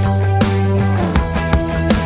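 Background rock music with held electric guitar chords and occasional drum hits.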